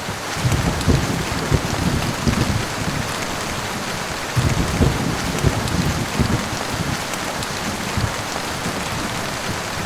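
Steady heavy rain hissing, with two spells of low, crackling thunder rumble rolling under it: one about half a second in and another about four and a half seconds in.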